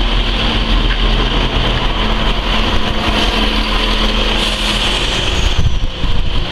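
Electric multiple unit passenger train pulling out and running past close by: a loud, steady rumble of wheels and running gear with a low hum from the traction equipment.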